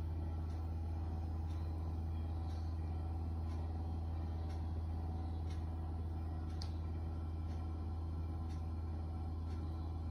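A steady low hum at an even level, with faint ticks about once a second.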